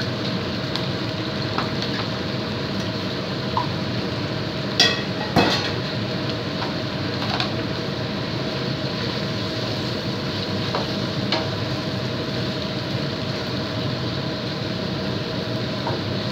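Chicken curry in coconut milk simmering in a wok with a steady sizzling hiss, stirred with a wooden spatula. Two sharp knocks about five seconds in and a few light ticks.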